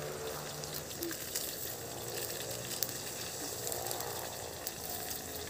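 Steady hiss of green leaves frying in a wok over an open wood fire, with a few faint crackles.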